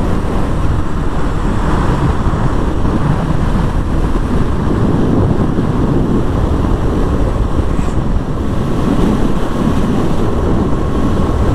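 Motorcycle on the move: steady wind rush buffeting the action camera's microphone over the KTM Duke's engine running at cruising speed.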